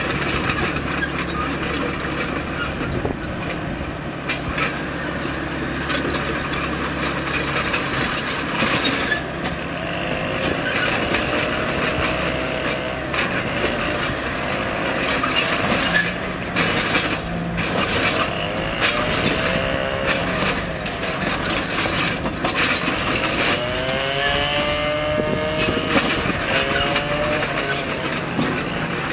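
Bulldozer engine running steadily under load while the machine pushes rock, with many knocks and clanks. Wavering squeals come several times, about a third of the way in, past the middle, and near the end.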